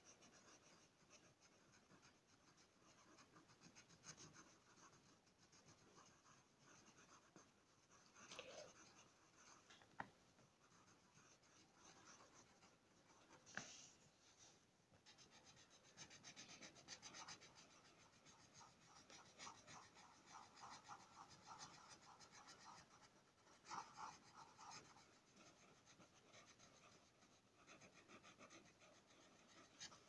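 Faint scratching of a coloured pencil shading on paper, in quick repeated strokes, with a couple of sharp ticks partway through.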